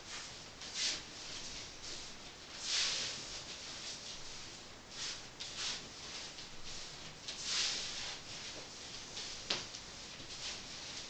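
Soft swishing of a dancer's steps turning on the floor and of her skirt and hip scarf, coming irregularly every second or so, with one sharp click near the end.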